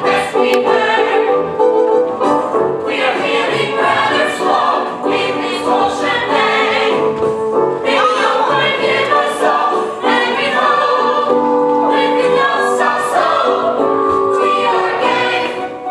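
A chorus of voices singing a musical-theatre number over instrumental accompaniment.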